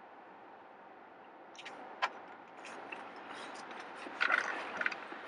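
Faint rustling and rubbing of clothing as someone climbs into a pickup truck's cab, with a sharp click about two seconds in and louder rustling near the end.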